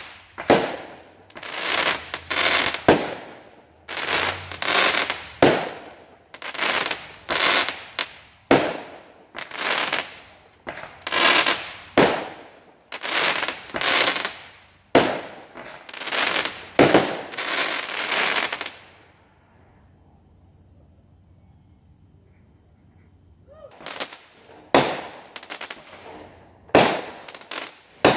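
Fireworks going off in rapid succession, one bang after another with echoing tails. They pause for about four seconds past the middle, leaving only a faint high steady tone, then resume with more bangs.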